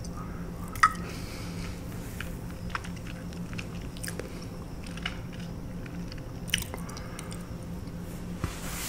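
Close-miked chewing and lip smacking on a mouthful of pasta in Alfredo sauce: scattered wet mouth clicks and smacks, the sharpest about a second in, over a steady low hum.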